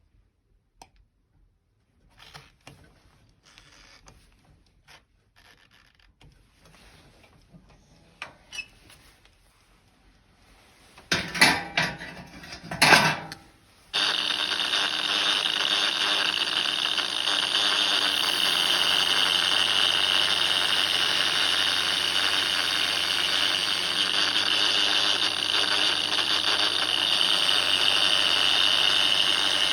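Light clinks and scrapes of metal being handled, a few loud clattering knocks, then about halfway through a power tool switches on and runs steadily with a high whine.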